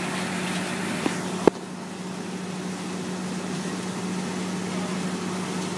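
Steady rush of a fire hose stream over a constant engine hum. Two sharp clicks come a second or so in, the second one loud.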